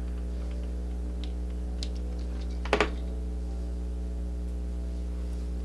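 A few light clicks and one louder short clatter about three seconds in, like a hard object being handled or set down, over a steady low hum.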